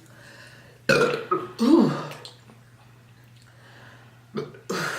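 Person burping from carbonated soda: two loud burps about a second in, the second falling in pitch, then two shorter ones near the end.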